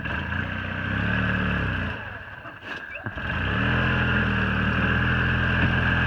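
Golf cart engine revving up under load, easing off about two seconds in, then revving up again and holding steady: the cart is straining to pull a boat and trailer up the ramp.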